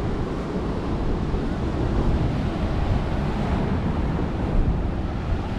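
Ocean surf washing over rocks, a steady rushing noise, with wind buffeting the microphone.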